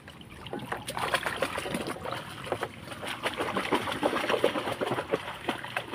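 Water splashing irregularly and repeatedly, starting about a second in, as someone wading beats the surface of a shallow canal to drive fish into a gill net.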